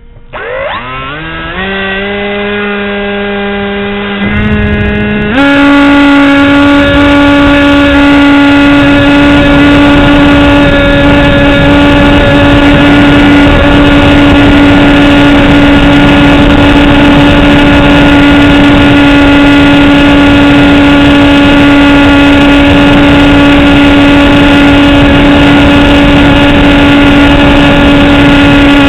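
Radio-controlled model airplane's motor and propeller, heard from the onboard camera. The pitch rises as the throttle opens, holds, then steps up about five seconds in and runs at a steady high whine for the rest of the flight, with wind rushing over the microphone.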